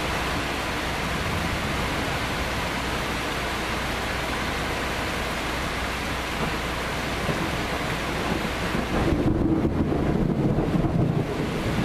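Steady hiss of heavy thunderstorm rain. About nine seconds in, a loud, unsteady low rumble sets in and the hiss drops back under it.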